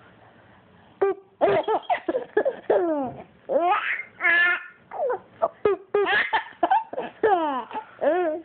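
A baby laughing in a run of high-pitched, squealing laughs with gliding pitch, beginning about a second in.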